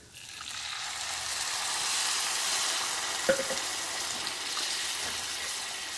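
Milk sizzling as it is poured into hot ghee-roasted moong dal, a steady hiss that swells over the first couple of seconds. A single light knock about three seconds in.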